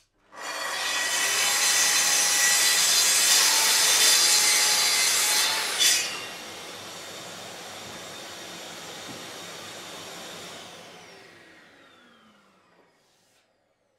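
Festool plunge-cut track saw with a dust extractor attached, cutting through ash for about five and a half seconds. It then runs on more quietly without load and winds down with a falling pitch near the end.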